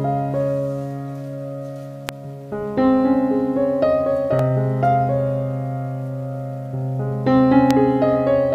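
Background piano music: slow held notes and chords.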